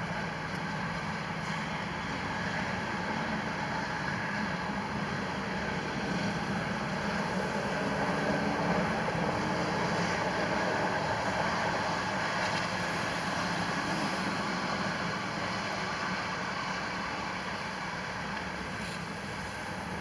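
A steady rumbling noise that swells a little around the middle and eases off slightly near the end.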